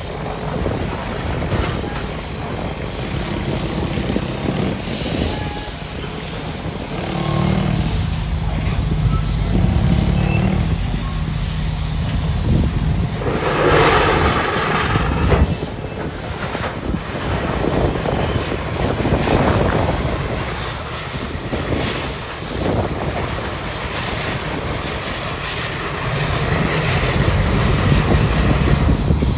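Steam shovel at work digging and swinging its bucket: its steam machinery running under a steady low rumble that swells and eases as it lifts and swings, with a louder rush about halfway through.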